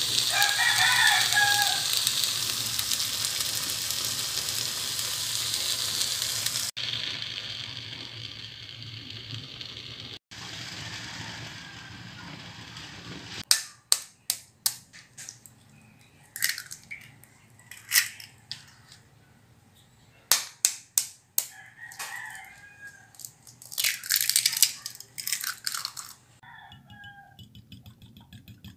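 Small shrimp (alamang) sizzling in hot oil in a non-stick frying pan, a loud, even hiss for the first half, broken by two edits. Then sharp clicks and short clusters of taps on a glass bowl as eggs are cracked into it, and near the end quick, regular light taps of the eggs being beaten.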